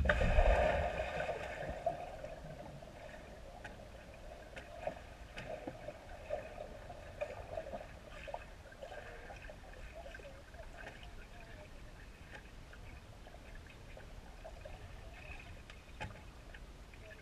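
Pool water heard underwater through a GoPro's waterproof housing on the pool floor: muffled sloshing and gurgling, loudest in the first couple of seconds, then settling into a low, wavering wash with a few scattered small clicks.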